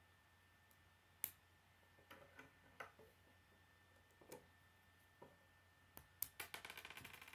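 Plastic K'nex rods and connectors clicking as they are pressed and snapped together by hand: scattered single clicks, then a quick run of clicks near the end.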